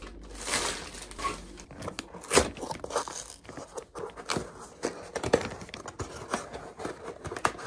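A cardboard Priority Mail box being torn open by hand: irregular ripping and crinkling of cardboard and paper, with many short sharp crackles.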